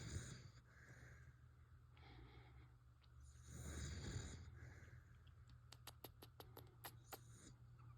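A 14-year-old dachshund snoring softly in its sleep: a few soft, noisy breaths, the strongest about halfway through. A quick run of faint clicks follows near the end.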